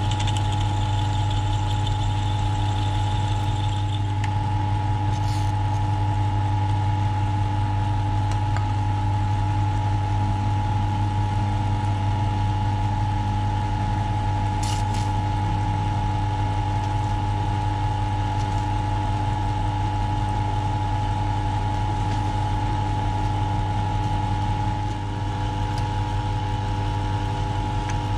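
Cincinnati milling machine running steadily as its spindle drives a drill bit down through an aluminium bar, a constant motor and gear hum with steady tones above it. Two faint clicks come a few seconds in and about halfway.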